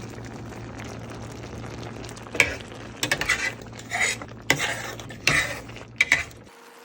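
Shrimp and garlic frying in a pan with a steady sizzle. From about two and a half seconds in, a utensil stirs and scrapes against the pan several times. The sizzling cuts off suddenly near the end.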